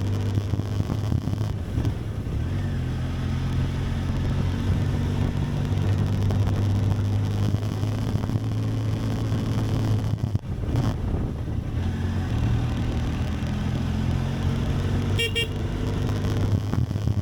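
Benelli TRK 502X's parallel-twin engine running under way, with a brief dip in its sound about ten seconds in. A short high beep sounds near the end.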